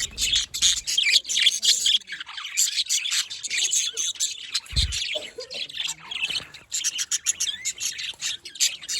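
A group of budgerigars chirping and chattering continuously in quick, overlapping high calls, with one brief low thump about halfway through.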